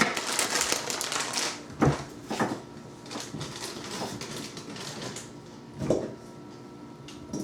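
A rapid clatter of small clicks for about the first second and a half, then a few separate knocks and handling noises.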